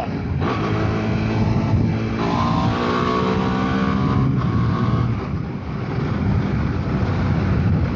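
Hyosung GT650R's V-twin engine running at highway speed, its note climbing a little about two seconds in and sinking into the wind noise after about five seconds. Wind rushing over the microphone throughout.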